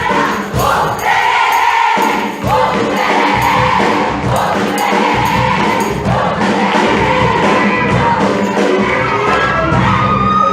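A large group of voices singing together over backing music, loud and steady.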